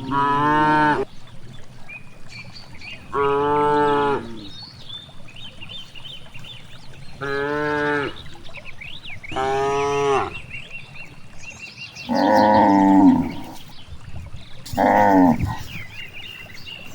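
Cows mooing in six separate calls, each about a second long and a few seconds apart. The later calls are lower and shaped differently from the earlier ones.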